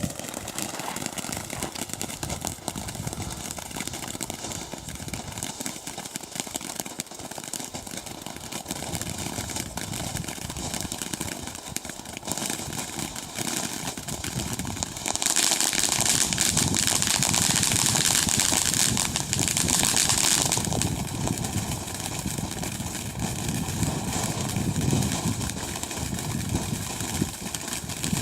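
A lit ground firework burning with a steady hiss. It grows clearly louder and more hissing for about five seconds past the middle, then settles back.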